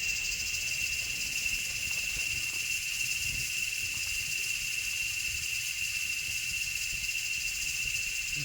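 Steady insect chorus of the rainforest: a continuous high, shrill buzz with a hiss above it, unchanging throughout.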